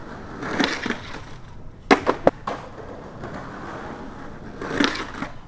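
Skateboard rolling with a steady wheel hiss, and three sharp clacks of the board about two seconds in, as from a tail pop and landing.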